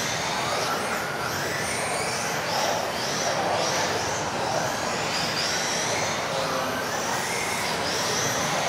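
Several electric RC off-road buggies racing together, their motors whining up in pitch again and again as each car accelerates, over a steady rush of noise in a reverberant sports hall.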